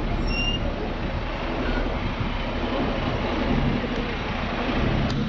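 Busy road traffic with wind rushing over the microphone, and the engine of a double-decker bus running alongside, its low hum coming up in the middle and again near the end.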